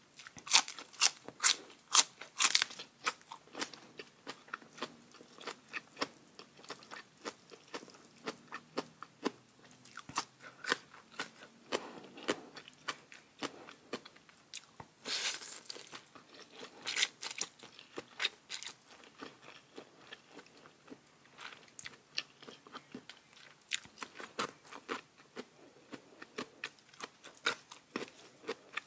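A person chewing and biting into crisp food, with many sharp crunches, the loudest in the first few seconds.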